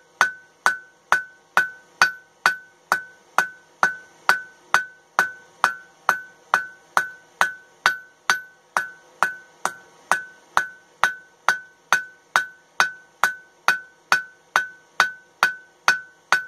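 Cross-peen hammer striking a red-hot flat steel bar on an anvil, a steady blow about every half second, each one ringing with a clear tone. The end of the bar is being peened out into a flared fishtail.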